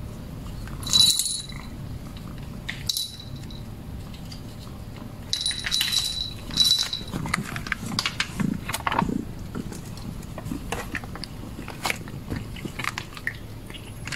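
A plastic cat food pouch is handled and crinkled in a few sharp bursts, then a run of small clicks and taps follows as the food is squeezed out onto a clear plastic tray.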